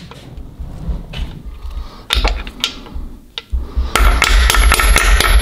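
Metal tool tapping against a VR6 engine block at the intermediate shaft bearing bore as the freshly installed bearing is worked into place. A few separate knocks come first, then fast, continuous tapping from about four seconds in.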